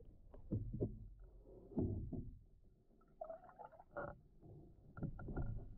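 Canoe paddle strokes heard through a camera held underwater: muffled low surges as the blade pulls through the water, with bubbling gurgles between them.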